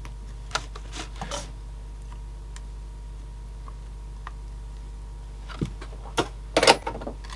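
Scattered light clicks and ticks of hand soldering on a small CD-player circuit board, over a steady low hum. A louder cluster of clicks and knocks comes near the end, after the soldering iron has been set back in its stand.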